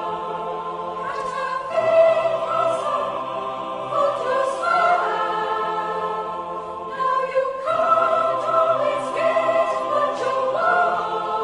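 Music: a choir singing slow, sustained chords.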